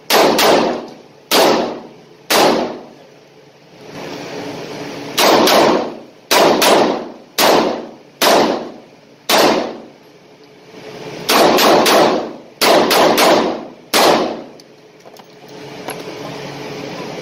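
Taurus 692 revolver firing strings of shots, roughly fifteen in all in three quick runs with short pauses between. Each shot sharp and echoing in an indoor range. The shooting stops a few seconds before the end, leaving a steady ventilation hum.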